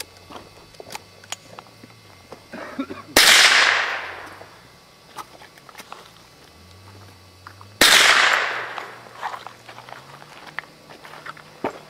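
Two single shots from a .22 rifle, about four and a half seconds apart. Each ends in an echo that fades over about a second.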